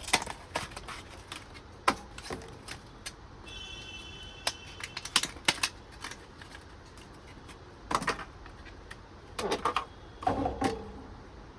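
Sharp small clicks and taps of an NVMe SSD being handled and fitted into a motherboard's M.2 slot. There is a brief high ringing tone about three and a half seconds in, and louder bursts of handling noise near the end.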